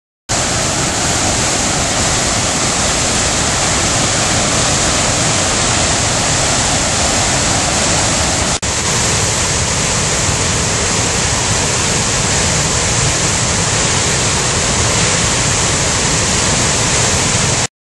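Flood-swollen river rushing through whitewater rapids, a loud, steady roar of churning water. It drops out for an instant about halfway through.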